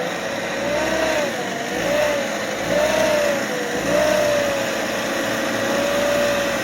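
Off-road vehicle's engine revving up and down over and over, its pitch rising and falling about once a second, as the throttle is worked.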